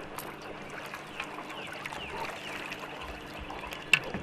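Water trickling and splashing on a fishing boat over a faint steady hum, with a sharp knock near the end.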